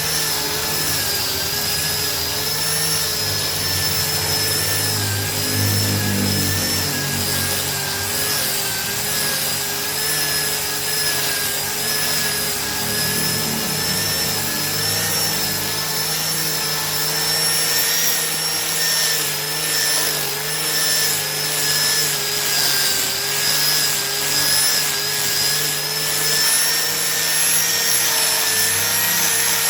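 Hand-held angle grinder fitted for sanding, running steadily against a solid-wood chair seat: a high motor whine that wavers slightly in pitch as the load changes, over the rasp of the abrasive on the wood.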